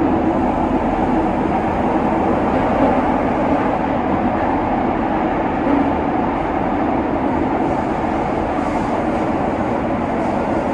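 Keihan 800 series electric train running through the subway tunnel, heard from the cab: a steady rumble of wheels and running gear on the rails.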